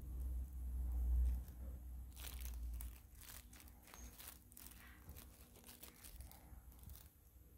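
Crinkling and rustling of a plastic food box as fingers handle the pastries, with scattered crackles and clicks about two to four seconds in. A low rumble of hands rubbing on the phone's microphone is the loudest sound for the first three seconds.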